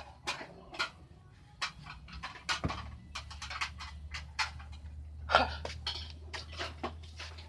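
Snoring: a sleeper's breaths rasping and rattling at uneven intervals, one louder snore about five seconds in, over a steady low hum.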